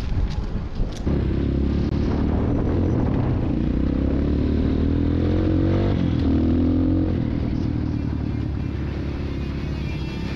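Engine of a small vehicle pulling away and speeding up, its pitch climbing between about two and seven seconds in before it settles to a steady run.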